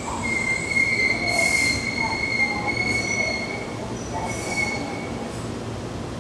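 Keihan electric train's wheels squealing on the rails in one high, steady tone that stops a little past halfway and comes back briefly. Under it is the low rumble of the train.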